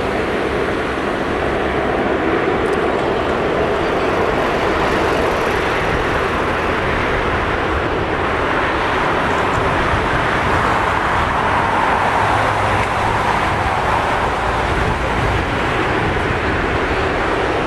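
Engines of a Bombardier Dash 8-400 (two Pratt & Whitney PW150A turboprops) running at takeoff power: a loud, steady rush of engine and propeller noise that grows a little stronger around the middle.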